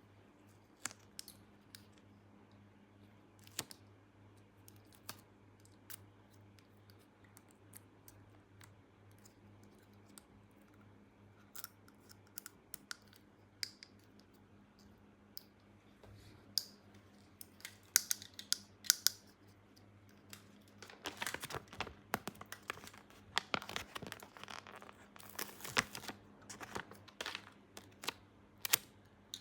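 Small plastic toy kitchen pieces being handled: scattered clicks and taps, growing into a busier stretch of rustling, scraping and clicking about two-thirds of the way through.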